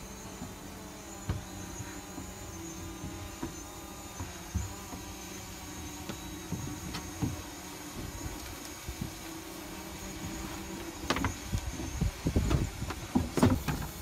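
A steady droning hum throughout; in the last three seconds, a run of irregular knocks and thumps as someone climbs the wooden treehouse stairs.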